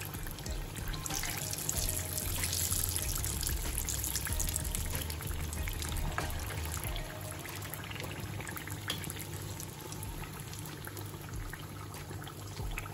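Samosas deep-frying in hot oil in a steel kadai, a steady sizzling and crackling that eases a little about halfway through; they are near the end of frying, light golden brown. A few sharper ticks come from the slotted steel spoon turning them in the oil.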